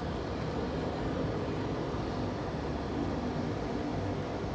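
Steady outdoor city background noise: a constant hum of traffic and urban activity with no single event standing out.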